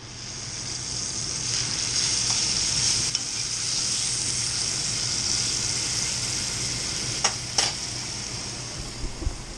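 Spanish mackerel fillets sizzling steadily in hot olive oil in a frying pan, being turned with a fork; two sharp clicks sound near the end.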